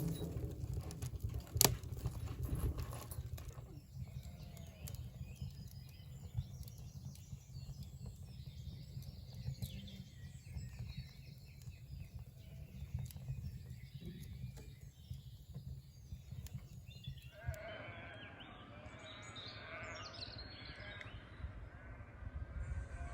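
Countryside ambience: sheep bleating and wild birds calling over a low, steady rumble. About three-quarters through, a cut brings in a fuller, busier stretch of calls.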